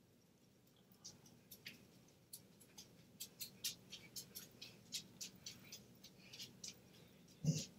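Computer mouse clicking: a faint, irregular string of short sharp clicks. A brief, louder low sound comes near the end.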